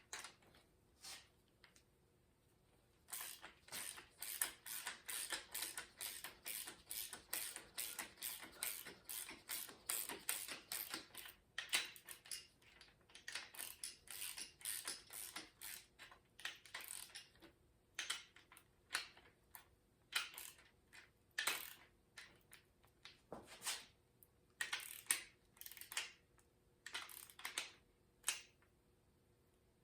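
Socket ratchet clicking in quick runs of short ticks as the rocker arm adjusting nuts are wound down during a valve lash adjustment, stopping and starting in groups.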